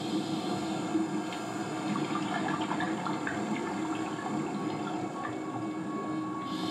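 Rushing water and bubbling from underwater diving footage, a steady wash of noise heard through a room's loudspeakers.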